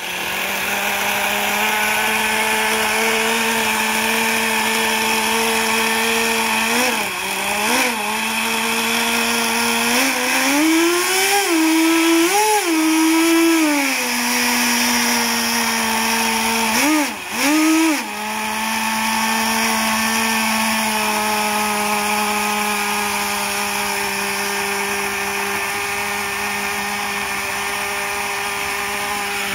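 Nitro engine of a radio-controlled model boat running on its stand, out of the water, with a steady high-pitched note. The throttle is blipped twice about a quarter of the way in, the revs rise and waver near the middle, and they dip twice just past halfway before the engine settles back to a steady run.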